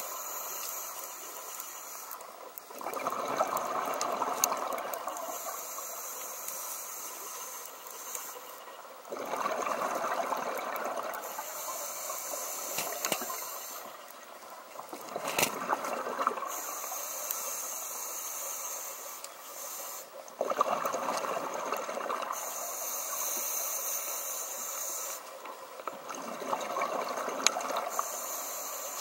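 A scuba diver breathing through a regulator underwater. A high hiss of each inhale alternates with a rush of exhaled bubbles, about five breaths at a steady pace of one every five to six seconds.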